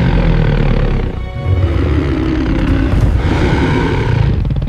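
A loud, rough, low rumbling roar in two long stretches, with a brief dip about a second in, over background music.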